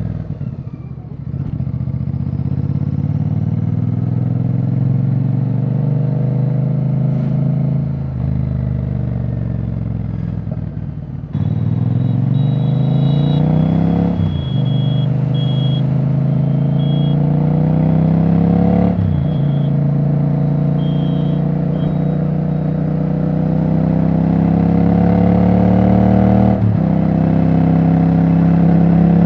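Royal Enfield Bear 650's 648 cc parallel-twin running with no silencer fitted, a loud open exhaust note. The engine pitch climbs and then drops sharply, repeatedly, as the bike accelerates through the gears.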